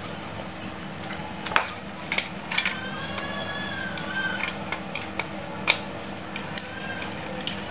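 A screwdriver working out the screws of a metal-cased switching power supply, with scattered sharp metallic clicks. About two and a half seconds in, a thin high squeak lasts a second and a half.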